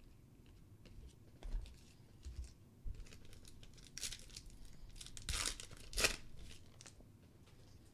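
Foil wrapper of a 2014 Prizm World Cup trading-card pack being crinkled and torn open, in a few sharp rips from about four to six seconds in, the last the loudest. A few soft bumps of handling come before it.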